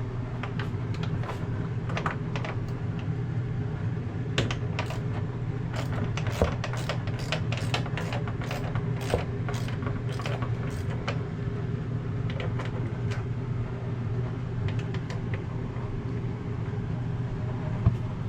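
Ratchet with a 5/16 socket clicking in quick runs as the refrigerator door's hinge bolts are backed out, with a few louder knocks of metal. A steady low hum runs underneath.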